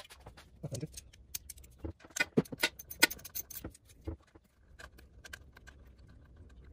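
Metal hand tools clinking and knocking: a socket on its extension handled and tapped against metal, giving a run of irregular sharp clicks, loudest about two to three seconds in.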